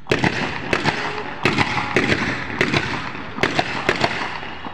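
Feu de joie: ceremonial rifles fired in a rapid rolling ripple, a dense string of sharp cracks several a second with crackling between them, starting suddenly.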